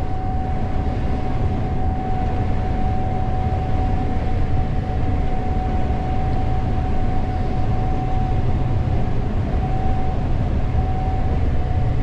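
Gleaner S98 combine running steadily while harvesting corn, heard from inside the cab: a dense low engine rumble with a constant high whine over it.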